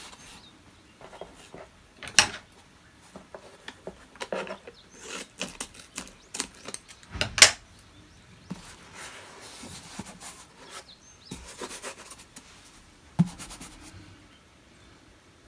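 Hands rubbing and pressing washi tape onto a cardboard box, irregular scuffs with a few sharp taps, the loudest about seven seconds in.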